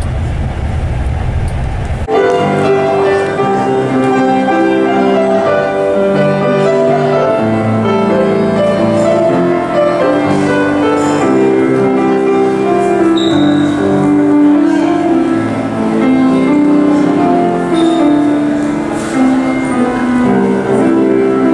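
Vehicle engine and road rumble for the first two seconds, then instrumental background music that runs to the end, a melody of held notes.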